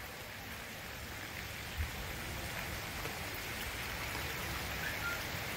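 Heavy monsoon rain falling steadily on a flooded field, an even hiss that grows slightly louder toward the end.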